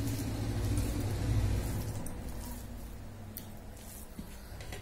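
Fingers mixing and squishing soft cooked rice and curry on a steel plate, with faint wet clicks. Under it, a low rumble swells over the first second or so and then fades.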